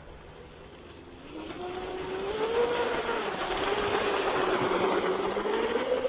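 Pro Boat Veles 29 V2 radio-controlled speedboat running fast close by: the electric motor's whine with a hiss of spray from the hull. It grows loud about a second in, and its pitch climbs, dips and rises again as the boat passes.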